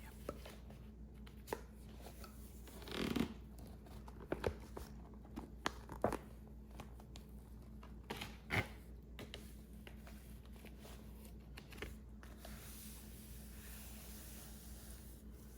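Quiet close-up handling of paper and small objects while working a puzzle: scattered light taps, clicks and short rustles, with one longer rustle about three seconds in, then only a few soft sounds.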